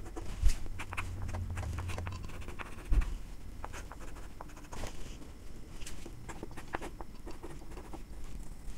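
Chalk tapping and scratching on a chalkboard as lines and figures are drawn, in many short strokes, with two dull thumps, about half a second in and about three seconds in.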